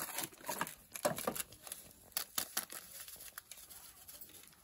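Crinkling of a plastic spice packet being handled as powdered chicken masala is poured from it into a bowl. It comes as irregular light crackles and ticks that thin out after about halfway.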